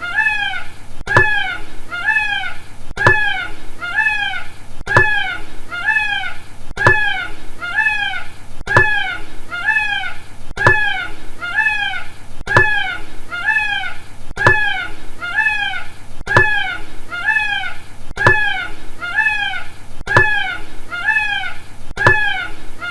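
Peacock calling over and over: short, rising-then-falling meow-like cries, about three every two seconds, in an evenly repeating pattern with a sharp click at the start of each cycle.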